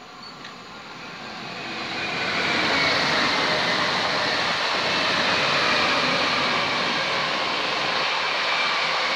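Two coupled EN78 electric multiple units passing on the main line. Wheel and rail noise with a faint steady whine builds over the first two seconds, then stays loud as the train goes by.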